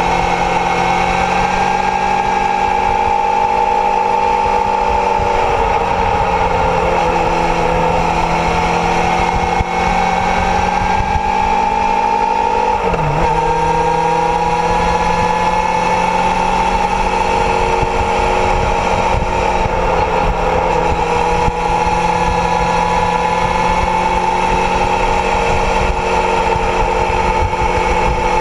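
Kawasaki Zephyr's air-cooled inline-four engine running steadily on the road, its pitch drifting slowly up and down with the throttle, with a brief drop and recovery about thirteen seconds in. Wind noise rumbles underneath.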